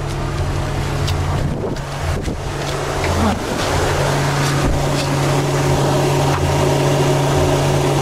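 The 2025 Ram 1500's 3.0-litre inline-six idling steadily, hot after towing close to 11,000 pounds up a steep grade, with its low oil pressure warning on. Wind buffets the microphone.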